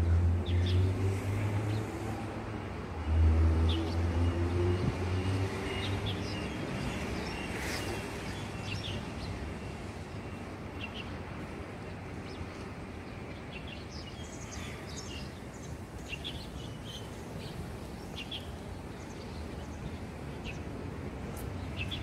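Many birds giving short, scattered chirps over steady background traffic noise. A passing vehicle's engine hum is loudest in the first five seconds, then fades.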